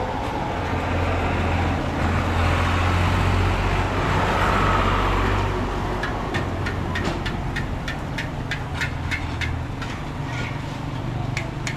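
Street traffic: a motor vehicle engine hum with road noise that swells and fades between about two and five seconds in. From about six seconds in comes a quick, irregular run of sharp clicks.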